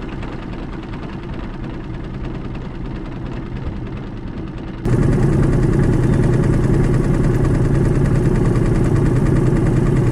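Small outboard motor running steadily at low trolling speed. About five seconds in the drone cuts abruptly to a louder, fuller sound.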